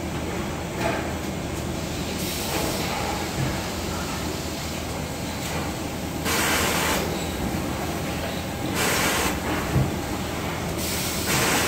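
Steady hum of a working electronics assembly floor, with four short bursts of hiss about two, six, nine and eleven seconds in.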